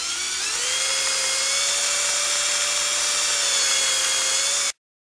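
Electric drill spinning a stick to stir grease and oil together in a grease tube: the motor whine rises in pitch as it spins up, then runs steady. It cuts off abruptly near the end.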